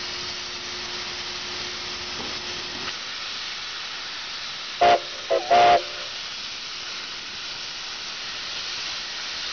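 Narrow-gauge steam locomotive hissing steady steam from its cylinder cocks as it moves slowly, with its steam whistle sounding three quick toots about halfway through, the middle one very brief.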